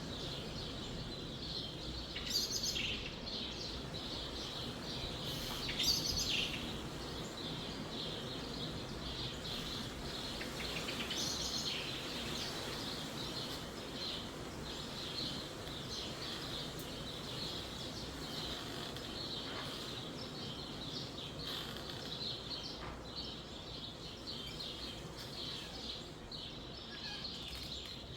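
Birds chirping busily and without pause, typical of sparrows, with louder bursts a couple of seconds in and again about six seconds in, over a steady rush of wind in the trees.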